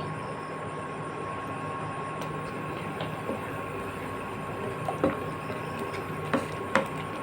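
Tomato chutney cooking in a kadai after its tempering, a steady sizzle with a few light clicks of the spoon against the pan late on.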